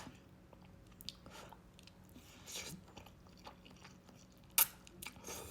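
A person chewing and biting food close to the microphone, with soft crunching sounds, and a single sharp click about four and a half seconds in.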